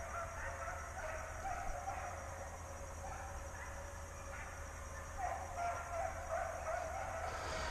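Hunting hounds baying and yelping in wavering, drawn-out calls that come and go, with a bout of louder baying about five seconds in, over a low steady rumble.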